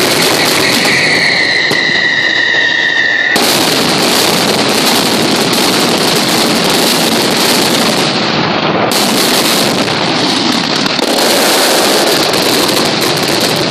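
Mascletà firecrackers (masclets) by Pirotecnia Caballer going off in a dense, unbroken barrage, the bangs merging into one continuous loud crackle, as in the ground-level 'terremoto' finale. For the first three seconds a high whistle sounds over the barrage, sinking slightly in pitch, then cuts off sharply as the crackle thickens.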